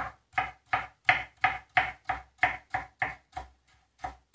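Kitchen knife slicing a potato into fine matchstick strips on a plastic cutting board: a steady run of sharp knocks, about three a second, each stroke of the blade striking the board.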